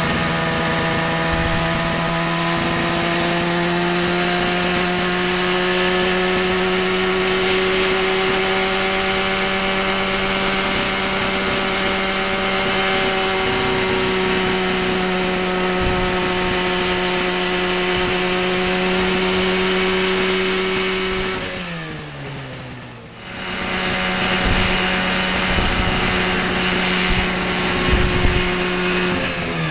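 Mosquito ultralight helicopter's MZ202 two-stroke twin engine and rotor running steadily at high rpm. About three-quarters of the way through, the pitch falls as it is throttled down. After a brief lull it runs steady again, and near the end the pitch starts to fall once more.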